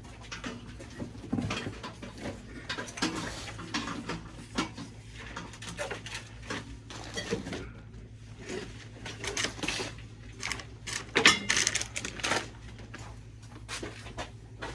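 Irregular clattering, knocking and scraping of objects being handled, loudest about eleven seconds in, over a steady low electrical hum.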